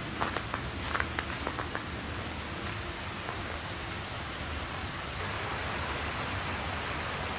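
Steady rushing of flowing river water, a little louder from about five seconds in. In the first two seconds there are a few soft crunches of footsteps in snow.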